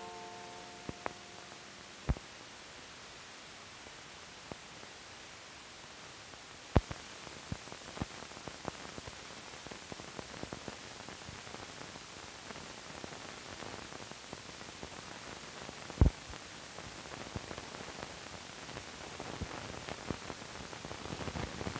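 Steady hiss of an old film soundtrack running out over blank leader, with scattered clicks and pops from dust and wear. Three louder pops about 2, 7 and 16 seconds in, and the crackle grows denser near the end.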